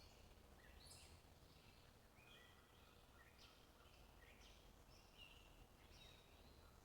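Faint bird chirps: short calls repeating every half second or so over a steady low background rumble.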